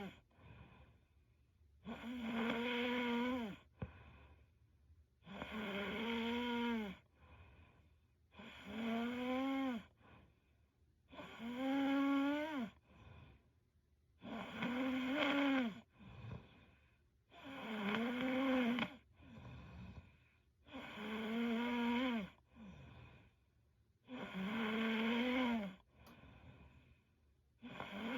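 A young woman snoring in her sleep: a pitched snore about every three seconds, each lasting a second or more and dropping in pitch at its end, with a soft breath between snores.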